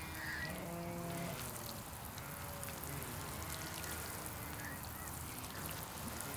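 Water sprinkling from a plastic watering can's rose onto bare garden soil, with pitched calls from a bird in the background, the loudest about a second in and fainter ones later.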